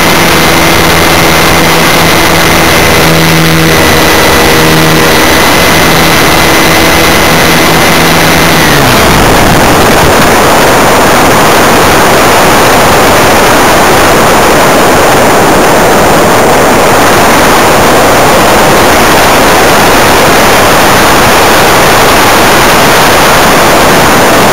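Small aircraft's motor and propeller recorded on board: a steady droning note until about nine seconds in, when the motor is cut and its pitch falls away. After that, a loud even rush of wind noise on the microphone as the aircraft glides.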